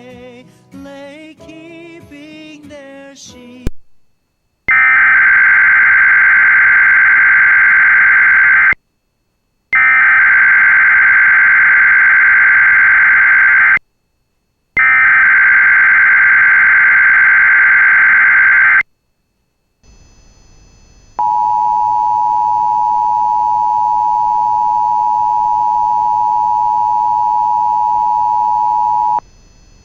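Emergency Alert System required monthly test: after a few seconds of music with singing, three screeching SAME digital header bursts of about four seconds each, a second apart, then the two-tone EAS attention signal held for about eight seconds.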